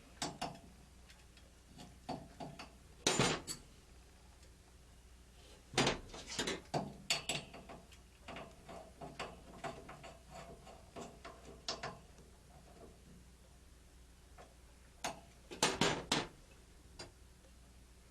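Hand work on a Taco zone valve power head and its wiring: scattered clicks, taps and knocks of plastic and metal parts being handled, in short clusters a few seconds apart.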